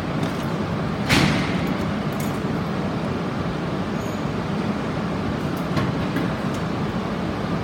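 Shinkansen train rumbling steadily at the platform, with one sharp metallic clank about a second in and a fainter knock near the end.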